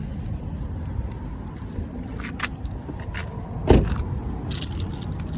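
Car running: a steady low rumble with scattered light clicks, and one louder thump a little past halfway through.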